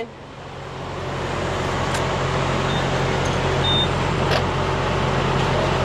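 A heavy truck's engine running, swelling over the first second or so and then holding steady, with two faint clicks about two seconds in and again past four seconds.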